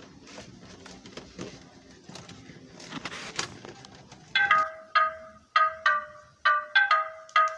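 Faint rustling and scattered clicks as a cardboard toy box and its packaging are handled. About four seconds in, music starts: a bright melody of short, plucked-sounding notes, about three or four a second.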